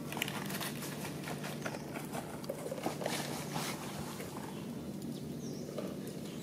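Light scattered clicks and scrapes of a clear plastic cup being pushed and knocked over concrete by a baby macaque, over a steady low background hum.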